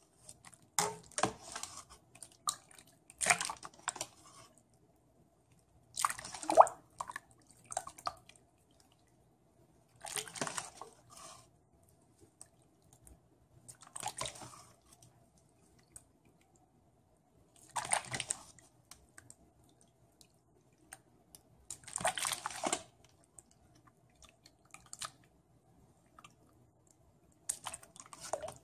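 Wet tamarind pulp being worked in a bowl of water, a wet squelch and splash every three to four seconds.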